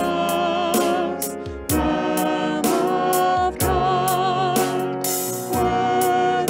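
Worship music: a voice singing with vibrato over instrumental accompaniment with a steady beat.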